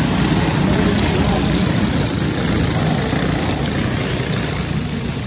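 A pack of racing go-kart engines running together at speed as the field of karts passes. The sound eases off near the end as the pack moves away.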